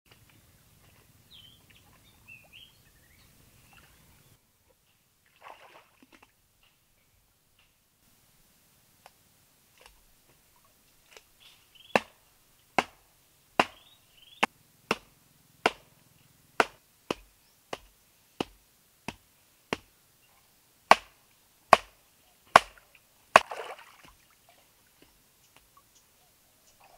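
A run of about fifteen sharp chopping strikes, a little under one a second, with a few bird chirps faintly before them.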